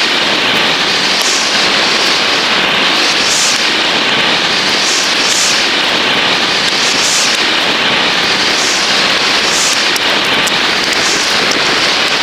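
Loud, steady hissing with many small crackles throughout.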